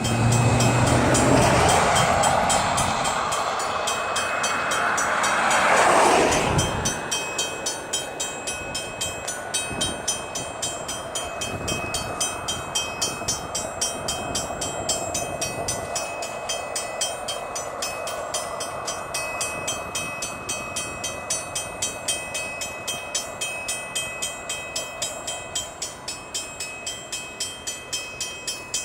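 Train passing a road crossing: the locomotive goes by loudly, peaking about six seconds in, then the cars roll past with a regular ticking about twice a second.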